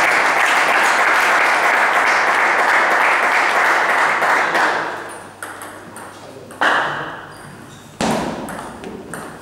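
Spectators cheering and clapping after a point, a dense crowd noise that fades away about five seconds in. Then come a few sharp clicks of a celluloid table tennis ball on bat and table as the next rally starts.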